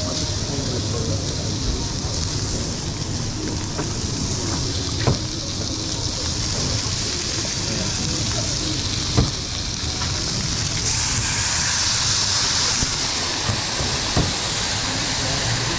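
Vegetables sizzling on a hot flat-top griddle: a steady frying hiss that swells for a couple of seconds about two thirds of the way through, with a few sharp metallic clicks.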